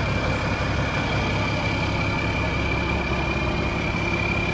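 Truck engine idling steadily, with a thin steady high-pitched whine running over it.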